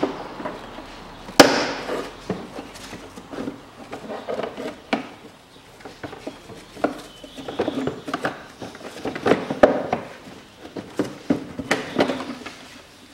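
Hard plastic air filter housing and intake duct being worked loose by hand in a car engine bay: irregular clacks, knocks and scraping of plastic parts, the loudest sharp knock about a second and a half in.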